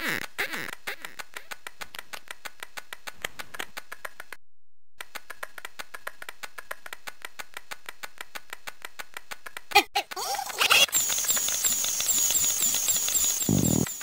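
Sampled Amiga cartoon sound effects: a steady run of quick ticks, about five a second, for the beetle's walking steps, with a brief dropout. About ten seconds in, a sudden louder jumble of gliding tones gives way to a repeating high chirp.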